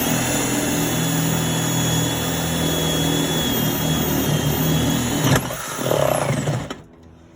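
Power drill running under load, boring a 7/8-inch hole through garage siding: a steady motor whine for about five seconds that cuts off suddenly, then a second, shorter burst that stops near the end.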